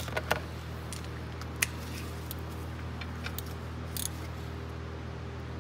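Scattered light clicks and taps of a hand wrench tightening the fill plug on a 1994 Honda 300 Fourtrax's rear differential, with a short run of quick clicks about four seconds in, over a steady low hum.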